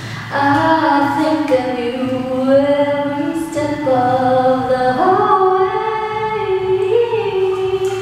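A woman singing unaccompanied, holding long notes and sliding between pitches.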